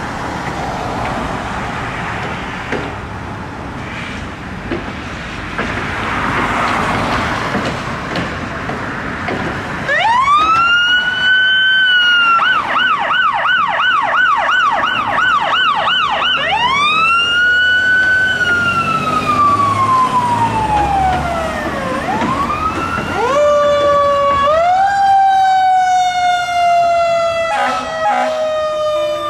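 For the first ten seconds, a truck engine and street traffic; then an electronic emergency-vehicle siren starts with a rising wail, switches to a fast yelp of about two and a half cycles a second, and falls back into a slow wail. Near the end, a siren wails again, rising and then slowly falling, as the fire engine leaves.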